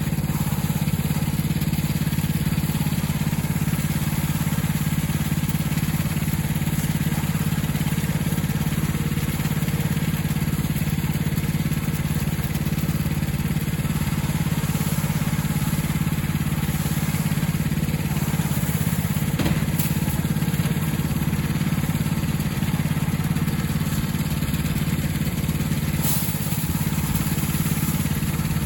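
A small engine running steadily, a constant low drone that holds the same speed throughout.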